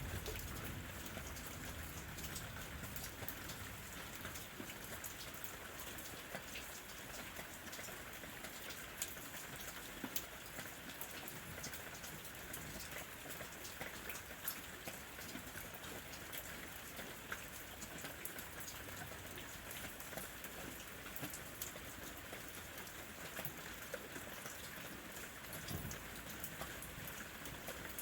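Steady rain falling, with many individual drops pattering sharply on a hard surface.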